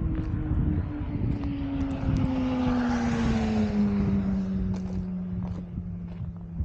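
A propeller aircraft flying over: its drone slides steadily down in pitch as it passes and is loudest about three seconds in. Low rumble and scattered knocks of footsteps and handling run underneath.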